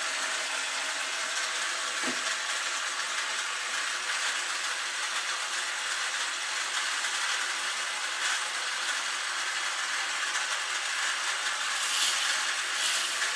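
Motorised chain lift of a K'nex roller coaster running steadily, a continuous clattering rattle as the chain hauls the train up the lift hill. Near the end, a flurry of sharp clicks as the train runs down the track.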